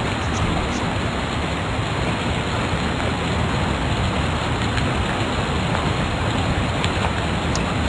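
Steady, loud hiss-like noise with no speech, the background noise of the lecture recording.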